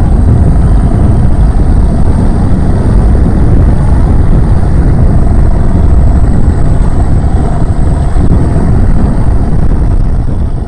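Boat engine running steadily at speed, with a thin, steady high whine over a low rumble.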